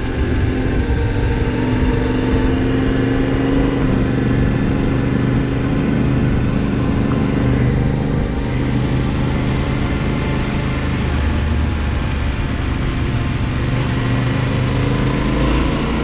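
2021 Yamaha Ténéré 700's parallel-twin engine running steadily at a cruise on a dirt road, with wind noise over the microphone.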